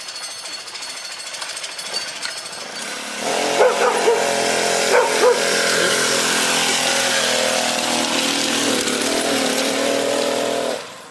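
Small engine of a motorized Felt 1903 Tanner bicycle with a custom exhaust, running as the bike rides past, getting much louder from about three seconds in. A dog barks several times a second or so later.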